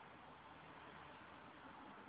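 Near silence: a steady, faint hiss of room tone, with no distinct events.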